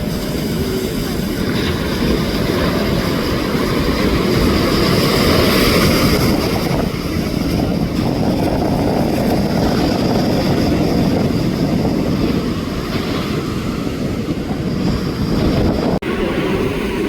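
Airliner passing overhead: a steady rush of engine noise with a thin high whine, swelling to a peak about six seconds in and then easing. The sound breaks off abruptly for an instant near the end.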